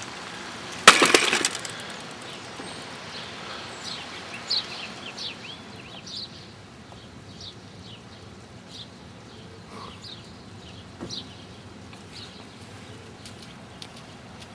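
A brief loud crackling clatter about a second in, followed by short high chirps repeated every half second to a second, like a small bird calling.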